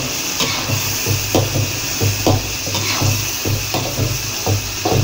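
Metal spatula scraping and knocking against a steel wok, irregularly, two or three strokes a second, while minced meat, onions and fish balls are stirred in sauce. A steady frying hiss runs underneath.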